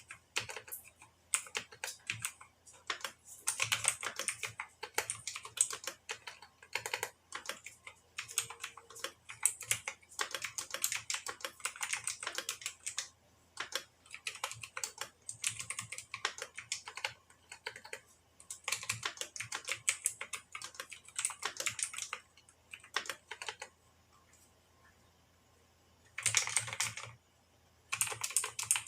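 Mechanical keyboard with blue switches lubed with ointment, typed on in runs of rapid key clicks with short pauses between them. A longer pause comes about three-quarters of the way through, then two more quick bursts.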